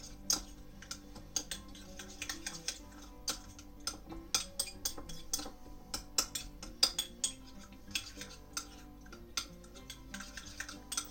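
A utensil stirring sauce in a small ceramic ramekin, with irregular quick clicks and taps against the bowl's sides. Quiet background music runs underneath.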